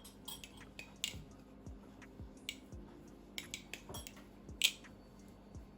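Irregular light metallic clicks and taps of a Svix Terra aluminium balisong being handled, its handles and parts knocking together, with a sharper click about four and a half seconds in.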